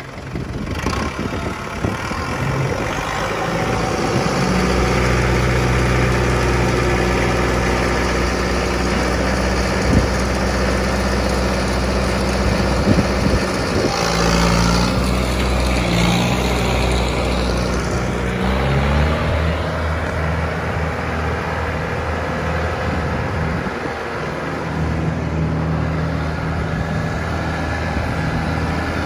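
Kubota M9000 tractor's diesel engine running steadily. Around the middle a brief hiss comes in, and a little later the engine note steps up to a higher speed and holds there.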